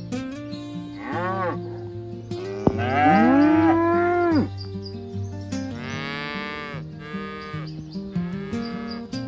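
Cows mooing, four calls with pitch rising then falling, the longest and loudest about three seconds in, over steady background music.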